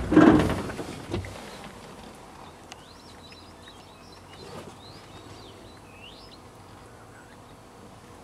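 A brief loud rustle or knock at the start, then faint high chirps and short rising and falling whistles, bird-like calls, for a few seconds over quiet bush ambience.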